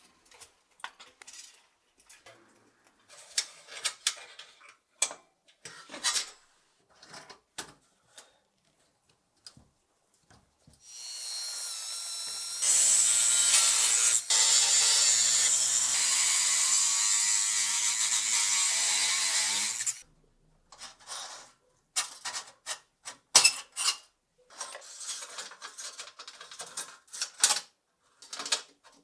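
Hand-tool clicks and scrapes while an old table football game is worked on, then a power tool runs steadily for about nine seconds, its pitch shifting once partway through, before the clicking and scraping resumes.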